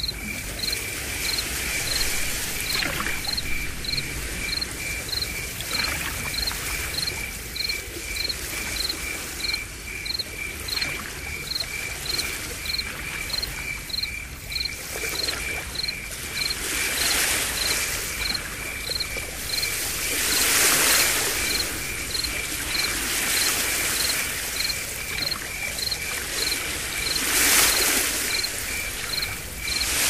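Insects chirping in an even rhythm, about two chirps a second, over a haze of surf that swells louder several times in the second half.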